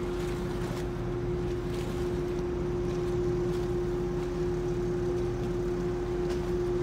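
Steady low rumble and hum of a moored ferry's engines and on-board machinery running, with one strong unchanging tone over it.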